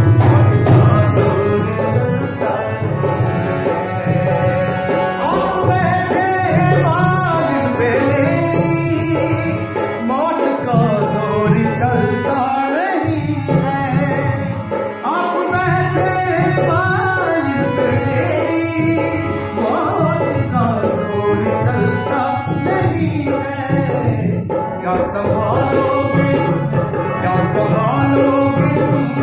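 A man singing a Hindi song in a full, ornamented voice, with his own harmonium accompaniment. The melody glides and bends throughout.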